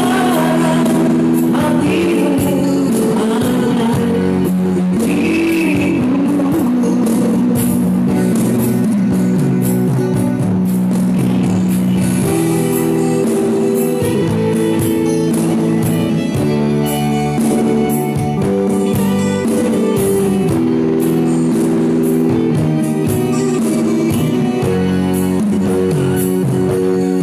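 Band music playing an old pop song, with long held chords and a steady beat.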